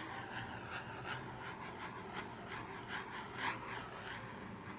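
Handheld blowtorch flame hissing steadily, with faint rhythmic swishes, as it is passed over a wet acrylic base coat to pop air bubbles.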